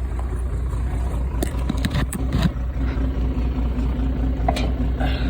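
Tractor engine idling with a steady low chug. A few sharp knocks come between about one and a half and two and a half seconds in.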